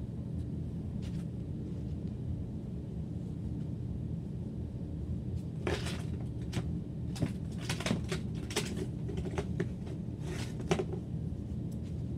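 Things being handled and set down: a scatter of short clicks and knocks starting about halfway through, over a steady low hum.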